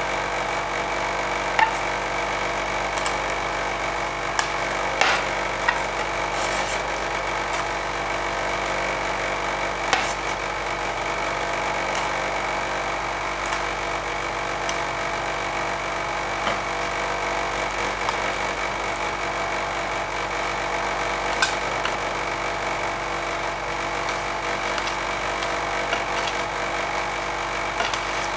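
Steel scrapers pushing and chopping soft dragon fruit ice cream base across the frozen metal plate of an ice cream roll machine. Now and then a blade taps sharply on the plate. Under it runs the steady hum of the machine's refrigeration unit.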